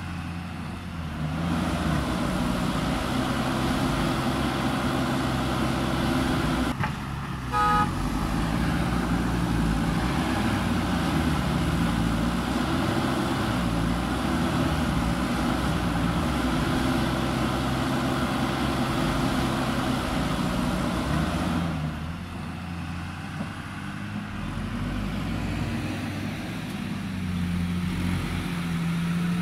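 Heavy diesel engines of a JCB backhoe loader and a loaded dump truck running under load as the backhoe's front bucket pushes the truck, the engine note rising and falling. A short vehicle horn toot sounds about seven seconds in.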